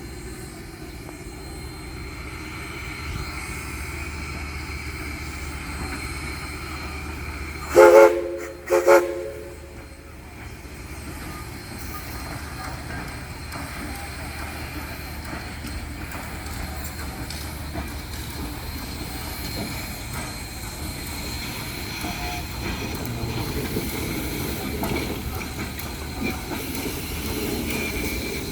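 Steam locomotive Southern Railway 4501 sounds its whistle in two short blasts about eight seconds in, the signal to move forward, over a steady low rumble of the engine working.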